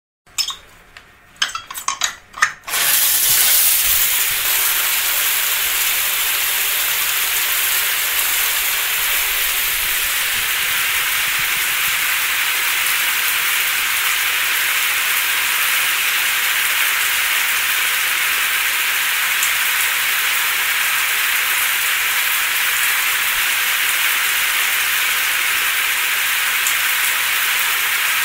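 Shower tap turned on with a few clicks and knocks of the handle, then water running from the shower in a steady hiss.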